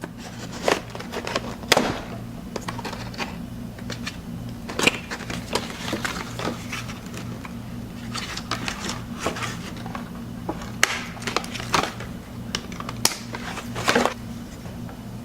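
A boxed action figure's cardboard and plastic packaging being handled and opened: irregular crinkles, clicks and snaps, over a steady low hum.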